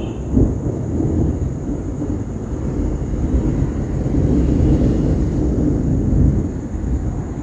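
Thunder rumbling in one long, low, continuous roll.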